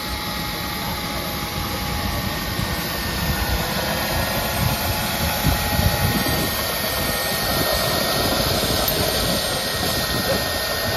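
Jetcat turboprop turbine running on the ground, a steady whine over a rushing noise as it turns the propeller, growing a little louder about three to four seconds in.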